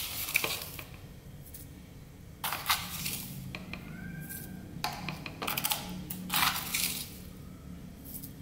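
Spoon scooping granular seasonings, sugar and then mushroom stock powder, out of their containers: several short scraping, rustling strokes over a faint steady low hum.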